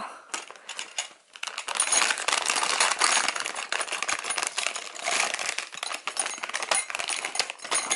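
Clear plastic bag crinkling as a small set of gold-coloured metal cutlery (spoon, fork and tongs) is worked out of it, the metal pieces clinking together. The crackling starts about a second in and runs densely after that.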